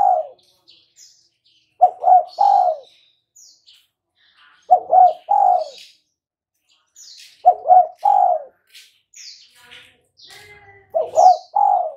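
Spotted dove cooing: a three-note phrase, the last note longest, repeated four times about every three seconds. Faint high-pitched chirps come in between.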